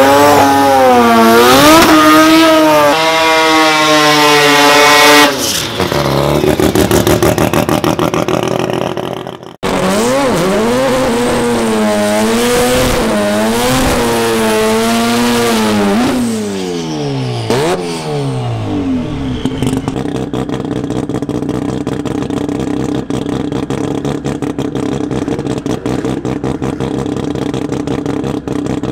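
Drag-race engines revving hard, their pitch swinging up and down again and again. After a cut, the turbocharged Mazda RX-7 (FC) drag car's rotary engine revs through a burnout, drops away about two-thirds of the way in, and settles into a steady, rapidly pulsing idle.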